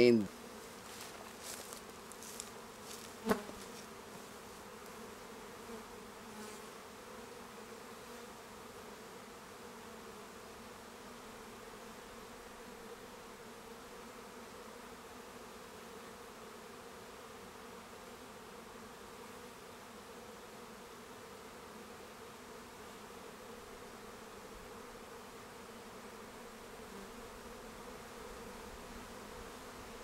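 Honey bees from an opened hive buzzing in a steady, even hum. A single sharp click sounds about three seconds in.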